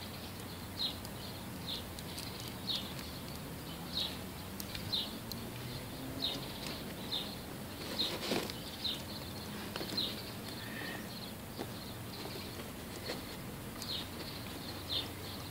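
A small bird chirping over and over outside: short high chirps at uneven intervals, about one a second.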